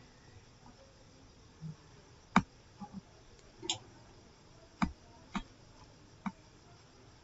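About seven short, sharp clicks at irregular intervals over faint room hiss, starting a couple of seconds in; two of them are clearly louder than the rest.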